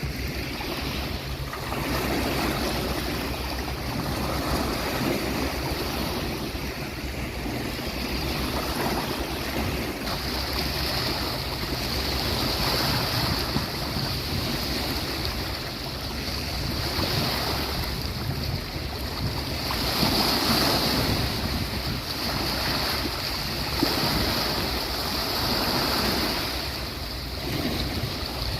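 Sea waves breaking on a beach, a continuous wash of surf that swells and falls every several seconds.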